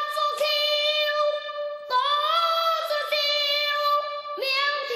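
A child singing Chinese opera in a high voice, holding long notes. A new phrase slides up in about two seconds in, and another begins near the end.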